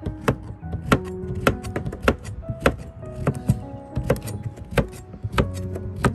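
A chef's knife chopping a courgette on a plastic cutting board, with sharp knocks of the blade on the board about twice a second. Background music with held notes plays underneath.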